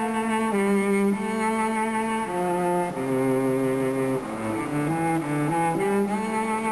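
Background music: a slow string melody of long held notes that steps lower through the middle and climbs back near the end.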